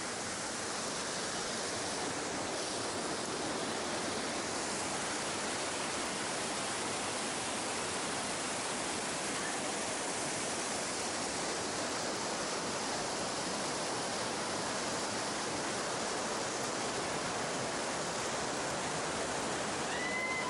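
Mountain stream rushing down small cascades over rocks in a gorge: a steady, unbroken rush of water.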